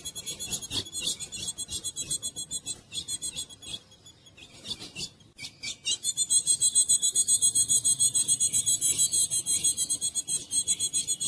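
Female ultramarine grosbeak (azulão) giving a rapid, raspy, high-pitched chatter of quickly repeated notes. It eases off briefly midway, then comes back louder and unbroken for the last five seconds.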